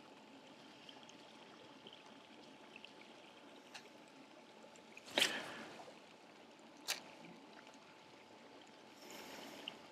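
Faint, steady rushing outdoor ambience. About five seconds in, a brief swish rises and fades, and a single sharp click follows about two seconds later.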